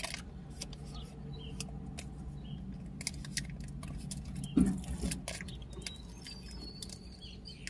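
Candy bar wrapper crinkling and rustling in the hands, a scatter of small sharp crackles, over a steady low hum.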